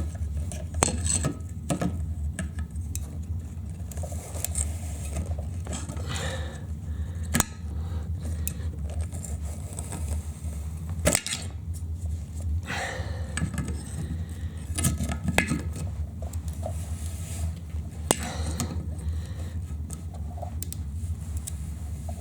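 A wrench clinking and scraping as it works the lock nut of a toilet flush valve tight under the tank: scattered sharp clicks and short scrapes over a steady low hum.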